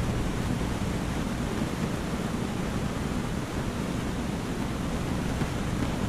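Aquarium water circulation: a steady, even rush of moving, bubbling water.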